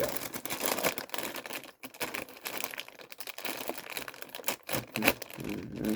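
Crinkling and rustling of a plastic cereal bag as the cereal is handled, an irregular crackle of many small sharp crackles.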